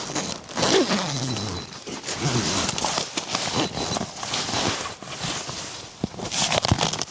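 Footsteps crunching through snow at a walking pace, with a short sound falling in pitch about a second in.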